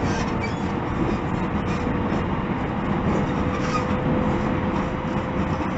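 JR 313 series 0-subseries electric train running, heard from inside, a steady rumble with a thin whine held on one pitch throughout. This is the unusual noise the uploader finds frightening and unpleasant.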